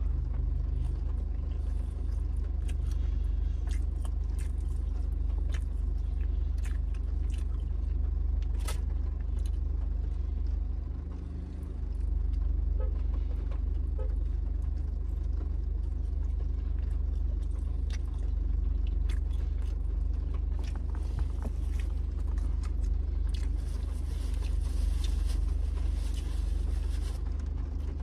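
Car engine idling, a steady low rumble inside the cabin, with many small clicks and rustles from handling and eating food. Near the end, a paper napkin rustles.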